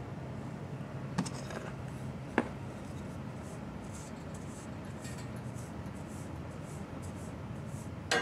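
Soft, scratchy strokes of a wooden-handled brush through a cat's fur, repeating about every half second. There are two sharp clicks in the first few seconds, and a louder knock with a brief metallic ring near the end.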